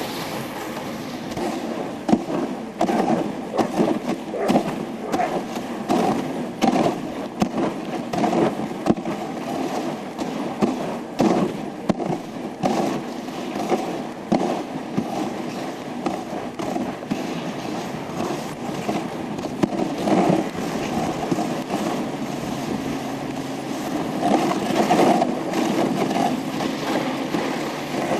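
Dog sled running over a snow trail: runners scraping and rattling, with frequent irregular knocks and clatters as the sled bumps along.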